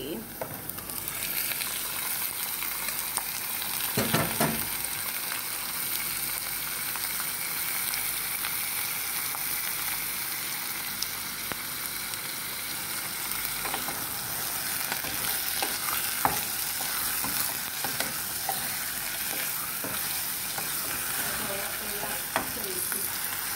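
Prawns and onions sizzling as they fry in a pot, with a wooden spoon stirring and scraping through them. A knock about four seconds in.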